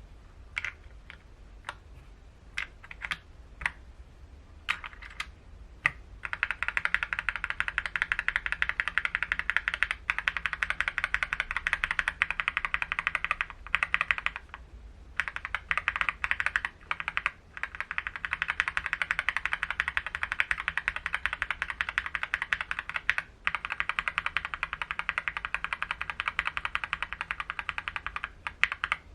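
Mechanical keyboard fitted with Akko linear switches being typed on. A few separate keystrokes come first, then fast continuous typing starts about six seconds in and carries on with two short pauses.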